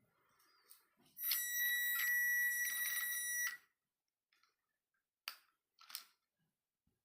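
A steady, high electronic beep held for about two seconds, followed by two short clicks.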